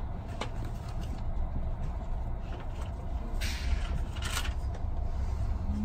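Cabin sound inside a Corail passenger coach rolling slowly out of the station: a steady low rumble with a few sharp creaks and clicks from the coach and running gear.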